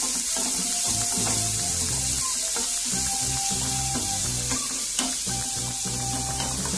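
Chopped onion sizzling as it sautés in hot oil in a pan, stirred and scraped with a wooden spatula, with background music underneath.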